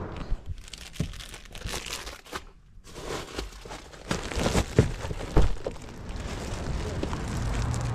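Clear plastic wrapping crinkling and rustling as a plastic-wrapped bundle is handled right against the microphone, with scattered sharp crackles and small knocks.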